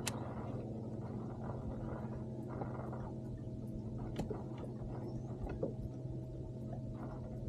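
Steady low motor hum on a fishing boat, with a few sharp clicks or knocks: one at the start, one about four seconds in and one at the end.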